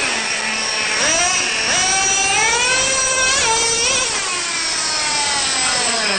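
Traxxas Revo 3.3's small two-stroke nitro engine revving, its high whine rising and falling several times and dropping off near the end.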